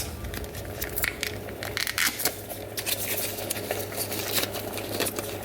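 Stock cube being handled over the pan: irregular crinkling and crackling clicks, over a steady low hum.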